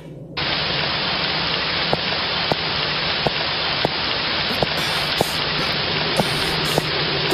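Steady rain falling, starting abruptly just under half a second in, with single drip ticks every half second or so over it.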